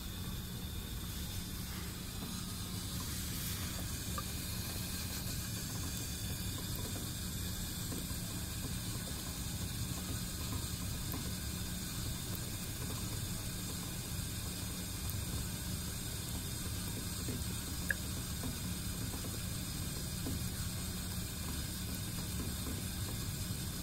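Coffee Queen filter coffee brewer brewing, with coffee trickling from the brew basket into the dispenser over a steady low hum and hiss. A single sharp click comes about eighteen seconds in.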